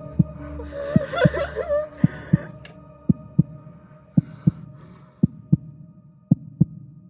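Heartbeat sound effect: paired lub-dub thumps about once a second, steady in pace, over a low steady hum, with a brief wavering tone about a second in.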